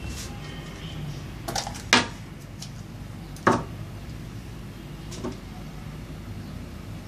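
A few short clicks and knocks of plastic Play-Doh tubs and lids being handled, two of them sharp and much louder than the rest.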